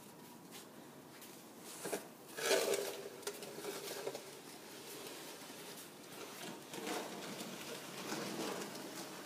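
Snow shovel scraping across a concrete driveway, a few separate strokes, the loudest about two and a half seconds in.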